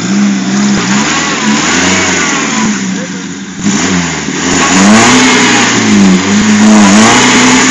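Six-cylinder Jeep engine revving hard under load in mud, its pitch rising and falling several times. It drops back briefly about three seconds in, then runs louder from about three and a half seconds on.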